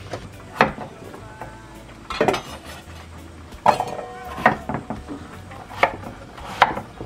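Kitchen knife chopping peeled potatoes into cubes on a wooden cutting board: separate sharp knocks about once a second, uneven in spacing, one of them followed by a brief ring.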